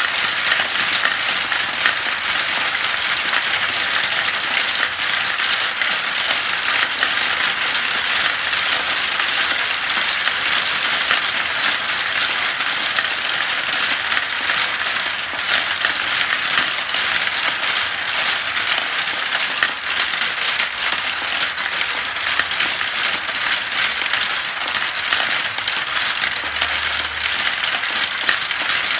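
Many glass marbles rolling and clattering through a plastic marble run, circling its funnels and dropping through the chutes: a steady, dense rattle of fine clicks.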